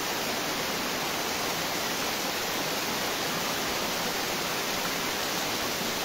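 Small waterfall pouring over a rock face: a steady, even rush of falling water.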